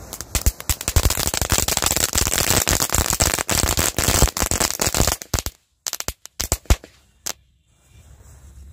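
Diwali firecrackers going off in a fast, dense rattle of bangs for about five seconds, followed by a few scattered last pops. Wind noise on the microphone returns near the end.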